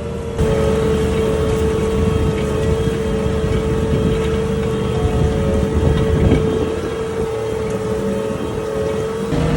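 Ford 8340 tractor's six-cylinder diesel engine running steadily while pulling a plough, with a steady whine over the low rumble. It gets a little louder about half a second in.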